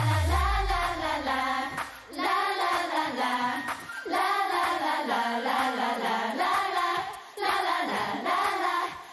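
Many young female voices singing a Cantopop chorus together in unison into microphones, over a thin backing track, in phrases broken by short pauses. A deep falling bass sweep sounds right at the start.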